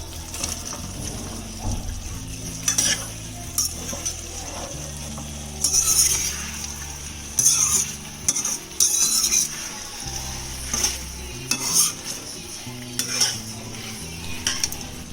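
A utensil stirring and scraping food in a cooking pan with a light sizzle: about a dozen irregular scrapes, some louder than others.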